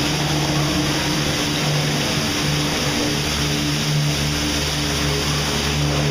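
Steady ambience of an indoor boat ride through a dark water channel: an even rushing wash over a constant low hum.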